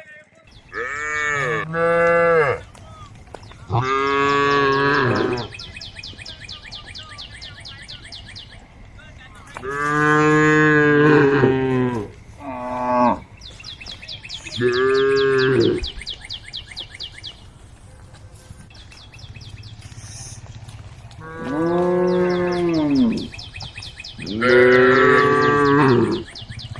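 Cows mooing again and again: about eight calls, some short and some drawn out for over a second, each rising and then falling in pitch. These are the calls cows make to the herd.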